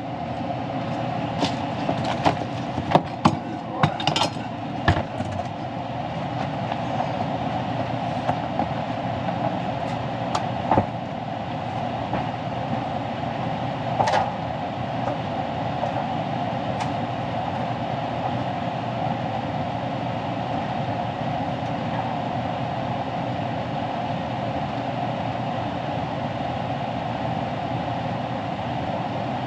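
Carrier gas furnace running on a heat call, with the steady whirring hum of its newly replaced inducer fan motor. A handful of sharp clicks and knocks in the first five seconds, and two more later on.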